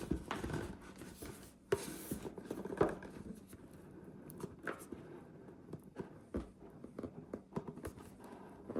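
Hands handling and opening a cardboard product box and its packaging: soft rustling and scraping with scattered light knocks and clicks, and a brief louder rustle about two seconds in.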